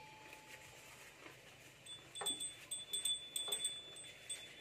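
Small bell on a cow's neck jingling in repeated light strikes as the animal eats grass, each strike ringing on briefly. The ringing is busiest in the second half.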